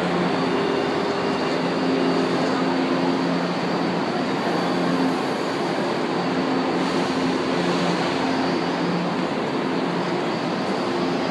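São Paulo Metro train running along the platform in the underground station: a steady rumble of wheels and running gear with a faint hum that comes and goes.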